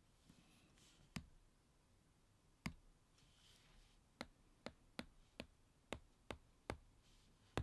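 Active stylus pen's tip tapping and sliding on an iPad's glass screen while handwriting: about ten sharp taps, coming faster in the second half, with faint scratching strokes between them.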